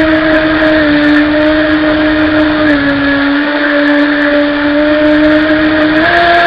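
Radio-controlled jet boat's motor and jet pump running under way, a steady whine that dips slightly in pitch twice and rises near the end as the throttle changes.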